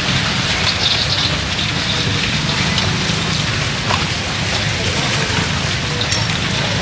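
Fish cakes deep-frying in pans of hot oil: a steady sizzle with scattered small crackles.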